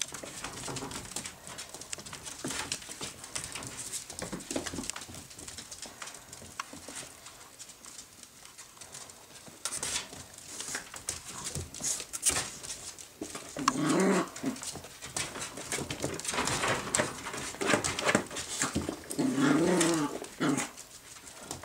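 Miniature Jack Russell Terrier puppies scuffling about, their claws clicking and tapping on a wooden floor, with a couple of short puppy whines or yips past the middle and near the end.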